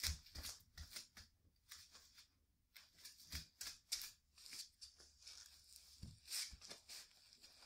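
Close rustling and handling noises: a series of short, scratchy rustles and light taps in clusters, with brief pauses about two seconds in and again about five seconds in.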